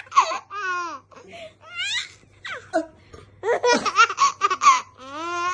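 A young child laughing in repeated high-pitched bursts and giggles, including a quick run of short laughs a little over halfway through.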